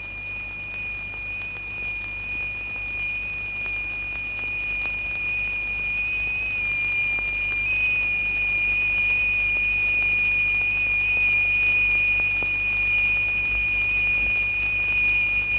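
A steady high electronic tone: two close-pitched test tones sounding together so that they beat, the signal exciting a cymatics plate strewn with sand. It grows slowly louder, with a small dip and jump in pitch about seven seconds in.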